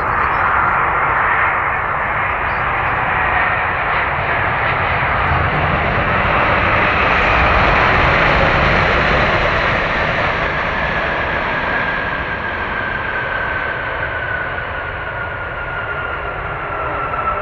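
Boeing 787-8's Rolls-Royce Trent 1000 engines in reverse thrust on the landing rollout, a loud jet rush that swells to its loudest about eight seconds in and then eases. A whine falls slowly in pitch through the second half as the engines spool down.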